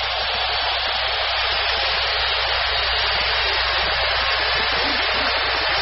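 Large stadium crowd cheering and applauding, a steady wall of noise.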